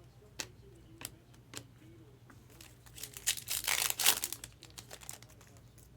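Trading-card pack wrapper crinkling and tearing as a pack is opened, loudest about halfway through, after a few light clicks of cards being handled.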